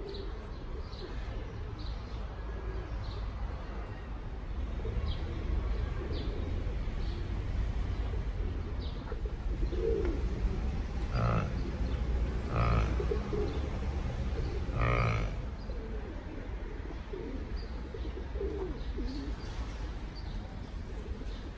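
Birds chirping over and over, with three louder calls in the middle, over a steady low rumble.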